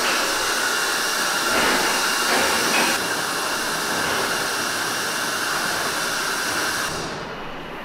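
Steady rushing hiss of a ferry's machinery and ventilation air on the open deck, fading out sharply about seven seconds in.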